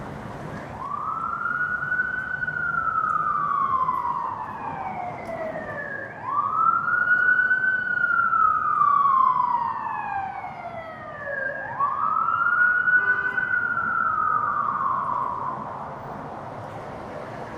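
Emergency vehicle siren on a slow wail: three long sweeps, each climbing quickly and then sliding slowly down in pitch, about five seconds apart, with a fourth starting near the end.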